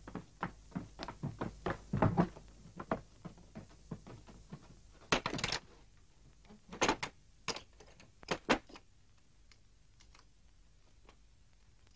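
A quick, irregular run of sharp wooden knocks and thuds, with a short scraping burst about five seconds in and a few louder knocks after it, fading to faint ticks near the end.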